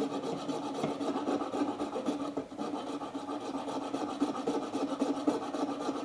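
Coping saw cutting by hand through deer antler in quick, continuous back-and-forth strokes, with a brief dip about two and a half seconds in. The blade is working down to the brass tube set inside the antler.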